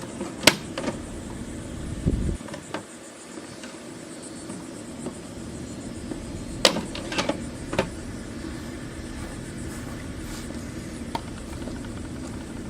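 A few sharp plastic clicks and knocks from the electric lawnmower's battery and parts being handled, one about half a second in and a cluster of three around seven seconds, over a steady low hum.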